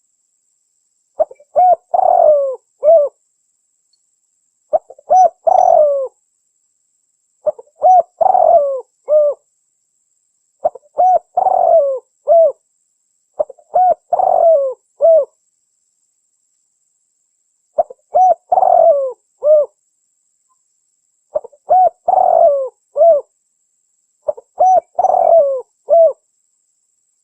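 Female spotted dove (tekukur) cooing: eight repeated phrases, each a quick run of short coos ending in a longer note, with silent pauses of one to two seconds between them.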